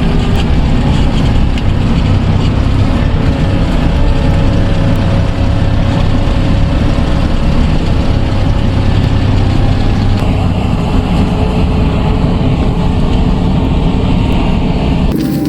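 Sherp amphibious ATV's diesel engine running loud and steady while the vehicle drives. The sound cuts off abruptly near the end.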